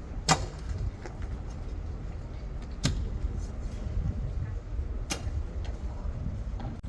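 Three sharp knocks, spaced about two to two and a half seconds apart, over a steady low rumble.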